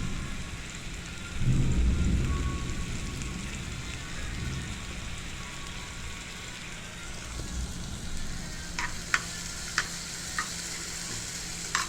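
Cooking oil sizzling steadily in a pot, with a low thump about a second and a half in and five sharp clicks near the end.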